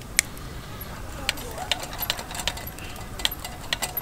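Irregular sharp clicks and snaps, a few each second and coming closer together in the second half, over a low steady background rumble.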